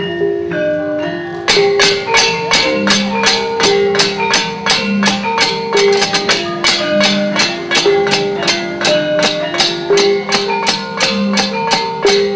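Javanese gamelan playing a melody on metallophones, with sharp percussive knocks joining about a second and a half in and running at roughly three a second, the kind the puppeteer beats out to drive the music.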